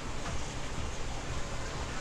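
Steady rushing noise of aquarium tanks running, water flow and filtration from the store's display tanks.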